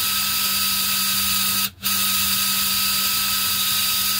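Small electric motor of a remote-controlled Meccano traction engine model running its steering gear through a train of brass gears: a steady whine that stops briefly about a second and a half in and then starts again.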